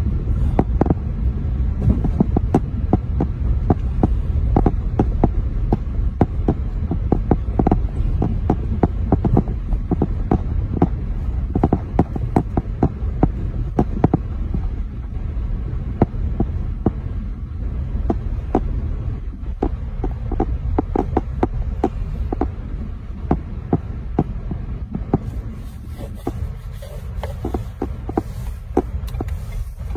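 Car driving slowly on a snowy road, heard from inside the cabin: a steady low rumble with many irregular light ticks and knocks.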